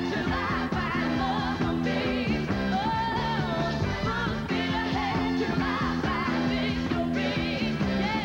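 A female lead singer and three backing singers perform live over a band. The lead voice holds wavering, vibrato-laden notes above a steady bass and keyboard backing.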